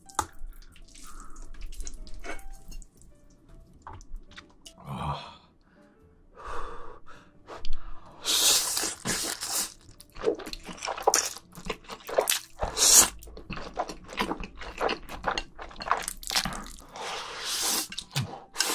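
Close-miked eating of jjajangmyeon, noodles in thick black bean sauce: wet, sticky mouth sounds and small clicks, then long, loud slurps of the noodles again and again from about eight seconds in, with chewing between them.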